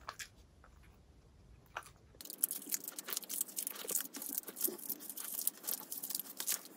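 A dog eating a cream-topped cupcake: a dense run of smacking and chewing sounds starts about two seconds in and goes on to the end.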